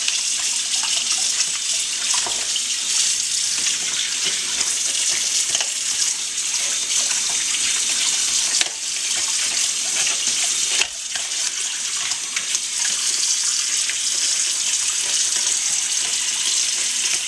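Kitchen faucet running steadily into a sink, its stream splashing over a crab held in the basin.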